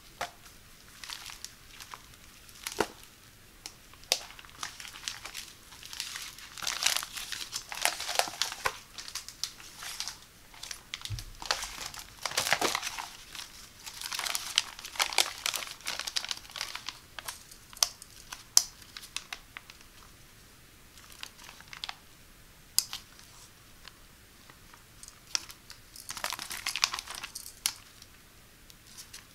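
Thin clear plastic bags and PEVA shower-curtain sheeting crinkling and rustling as hands open and unfold them, in uneven bursts with a few sharp crackles and short tearing sounds.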